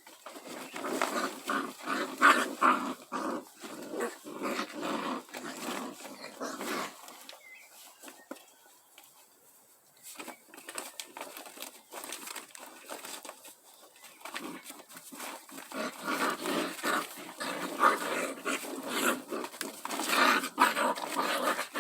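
An animal making rough, strange noises in two long spells, with a quieter stretch of several seconds between them.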